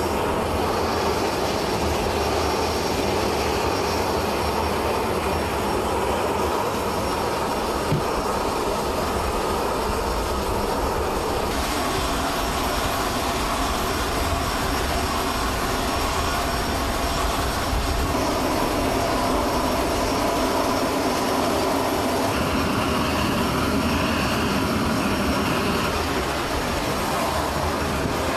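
Jet aircraft turbine noise running steadily and loud, a constant rumble and whine whose tone mix shifts a few times.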